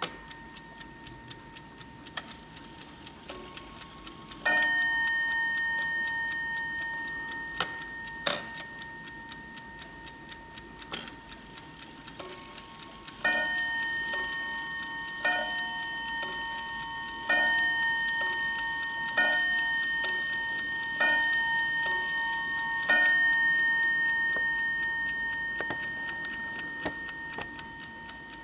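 Juba Schatz mantel clock ticking and striking its gong: a single blow about four seconds in, then six blows about two seconds apart for six o'clock, each ringing on and fading.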